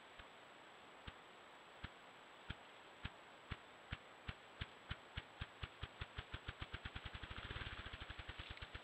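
Male ruffed grouse drumming: deep muffled thumps of its wingbeats, about a second apart at first, speeding up steadily into a fast whirring roll that stops near the end. This is the bird's territorial and courtship display.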